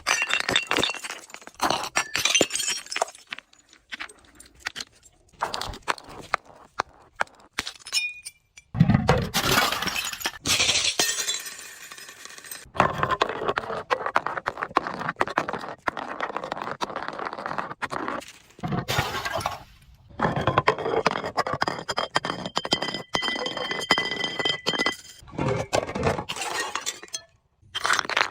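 Glass bottles breaking and being crushed: dense crackling and crunching of glass shards in several separate bursts, broken by abrupt short silences. For a few seconds past the middle, thin high ringing tones sound through the crunching.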